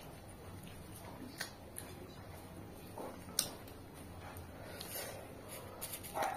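Quiet chewing of peeled orange segments, with a few soft, sharp mouth clicks.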